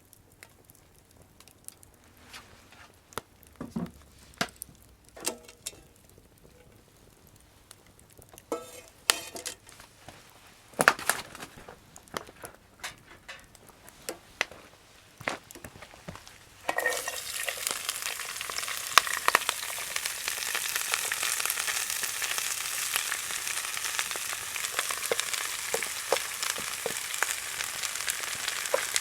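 Scattered knocks and clicks, then about seventeen seconds in food goes into a hot pan and begins frying with a steady sizzle.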